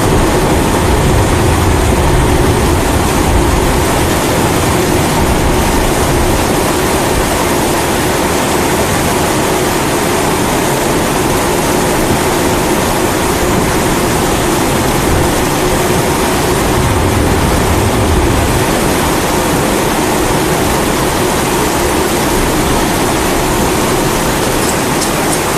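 Steady roar of a pressurized kerosene primus stove burner mixed with falling rain, with two low rumbling swells of thunder, one a second or two in and one about two-thirds of the way through.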